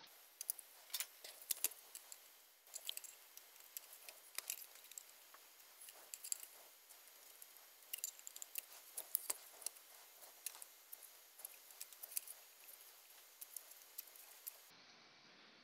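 Faint, scattered clicks and light knocks as the connector board is worked loose from the plastic housing of a Hydra 26 HD aquarium light.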